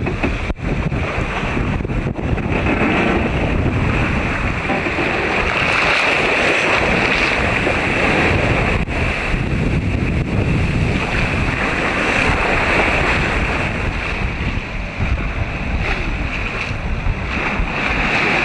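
Steady wind buffeting the microphone over the rush of waves, aboard a sailing ketch under way at sea.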